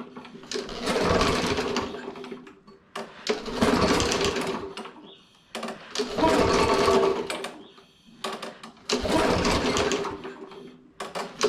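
Troy-Bilt TB110 push mower's four-stroke engine being pull-started: four pulls about three seconds apart, each turning the engine over for a second or two, and it does not stay running.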